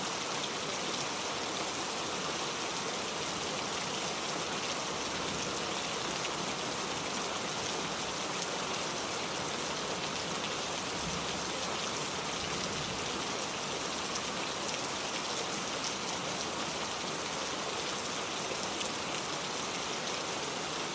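Steady rainfall with drops pattering on a surface, an even hiss with fine individual drop ticks.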